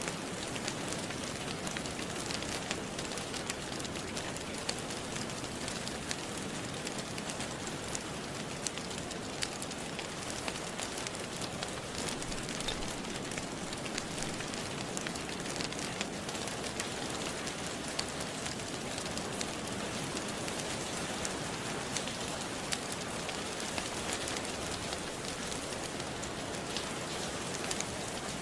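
Steady rain, a constant even hiss, with frequent small sharp crackles from a wood fire in a fireplace.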